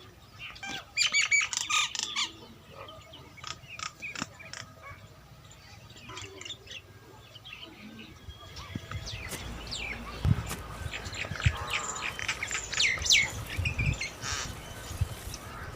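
A bird calling about a second in, briefly, followed by scattered clicks and knocks, with low thuds in the second half.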